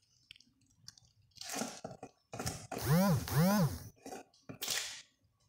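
Plastic lid of a jar of coarse salt being twisted and handled, with scraping and clicking, and two short squeaky tones that rise and fall about three seconds in. A brief grainy rustle comes near the end.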